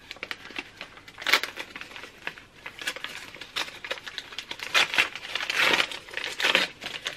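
Gift-wrapping paper being torn open and crinkled by hand, in irregular rustling bursts, loudest about a second in and again around five to six and a half seconds in.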